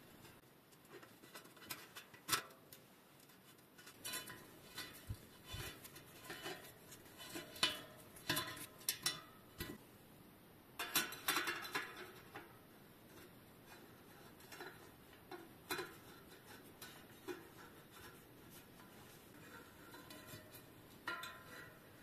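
Light metallic clicks and clinks of small hand tools on a bicycle rim and spoke nipple, as a spoke nipple driver and a spoke wrench are fitted and turned. The clicks come in scattered clusters, thickest in the first half, with a quieter spell later and a short flurry near the end.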